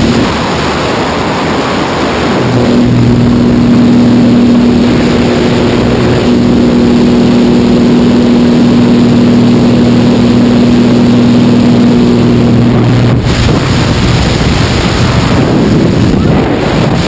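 Propeller engine of a light jump plane running steadily, heard with loud wind rushing through the open door. The engine tone drops away about 13 seconds in, leaving only the rush of wind.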